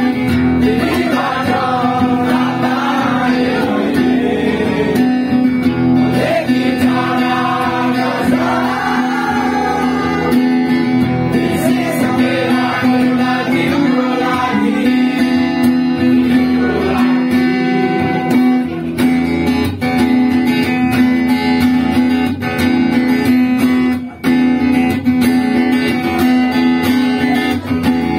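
Steel-string acoustic guitar played fingerstyle: a plucked melody over a low note that rings on steadily underneath. Voices sing along for roughly the first ten seconds.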